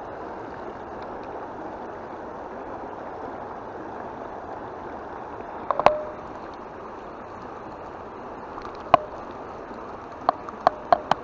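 Steady rush of river water flowing over a shallow ford. Sharp plastic clicks from a toy Barbie kids' spincast reel break through it: a pair about six seconds in as the line is cast, one more a few seconds later, and a quick run of four or five near the end.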